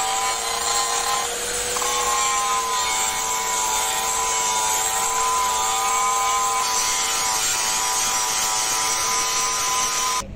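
Electric angle grinder running steadily with its abrasive disc ground against the painted face of a steel truck chassis rail: a steady motor whine over a dense grinding hiss. It stops suddenly near the end.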